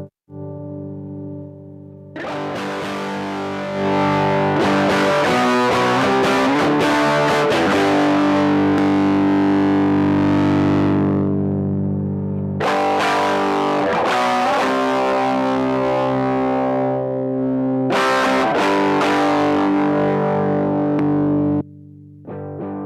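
Electric guitar played through distortion and effects, strumming chords and letting them ring. Loud new chord attacks come several times, and the playing breaks off abruptly near the end before one last brief strum.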